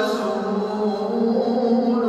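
Chanted vocal music: a single voice holding long, slowly wavering notes.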